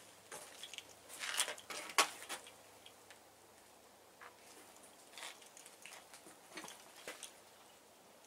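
Faint scattered clicks and scuffs, with a short cluster of them between about one and two and a half seconds in.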